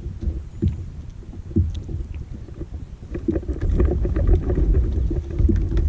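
Low rumble with scattered knocks and thuds from a small fishing boat's hull and deck, growing louder about three and a half seconds in.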